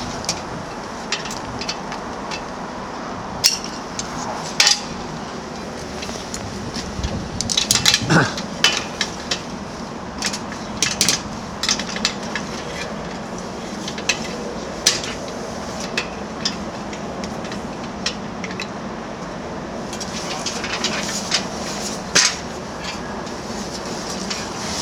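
Aluminium steeplejack ladder sections clinking and knocking on and off as they are handled and fitted together, with a busier run of knocks about eight seconds in, over a steady background hum.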